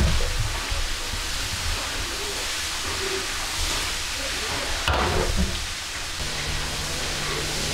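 Water boiling hard in a large copper pot, a steady hiss of bubbling and steam as it is stirred with a long-handled metal ladle, which knocks against the pot about five seconds in.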